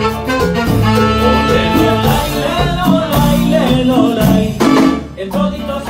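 Live Latin band playing an instrumental passage of a Christmas song: trumpet and saxophone over electric bass, keyboard, congas and drums, with a steady beat.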